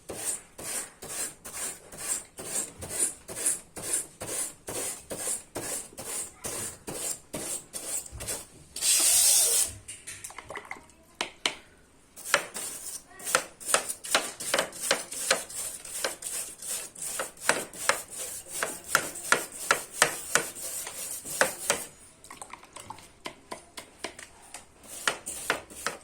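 Iron wire brush scrubbing the fins of a split AC's indoor cooling coil that is clogged with dust, in quick rasping strokes about two to three a second. A longer, louder hiss comes about nine seconds in, and the strokes pause briefly twice.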